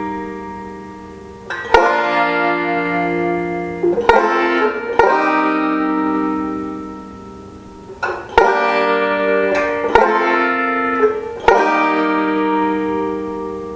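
Five-string banjo, capoed at the third fret with the fifth string tuned up to B flat, playing chords that are struck every one to three seconds and left to ring out and fade.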